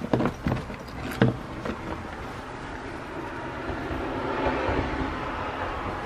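A few sharp knocks and clicks in the first second and a half, then a steady rushing noise that slowly grows louder.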